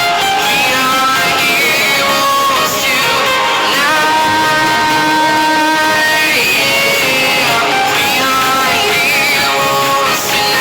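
Background pop song with guitar and a singing voice.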